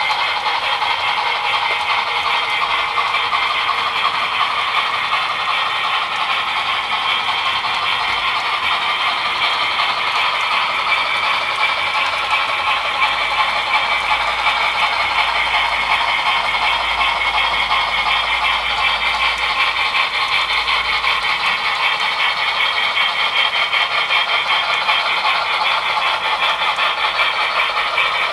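Model railroad freight cars rolling along the track: a steady rattling clatter of small wheels on the rails, even throughout.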